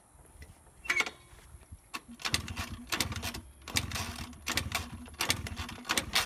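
Honda Elite 50 SR scooter's small two-stroke engine being kicked over repeatedly, about seven short cranking strokes each ending in a clack, turning over without catching.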